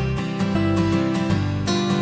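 Background music with acoustic guitar strumming and a bass line.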